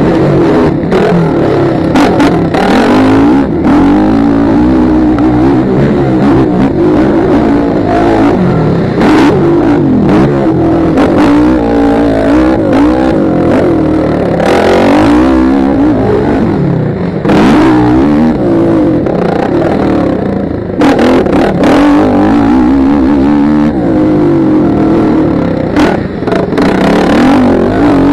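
Motocross dirt bike engine revving up and falling off again and again, as the rider races around the track. Heard loud through a helmet camera, with several brief rushes of noise.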